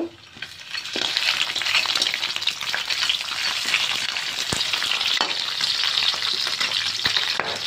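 Chopped blue crab pieces sizzling and crackling in hot oil in a wok as they are tipped in and stirred. The frying builds up within the first second, and a metal spatula now and then clicks and scrapes against the pan.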